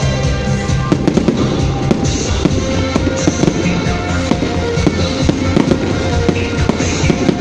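Fireworks going off without a break: many sharp bangs and crackles, with music playing under them.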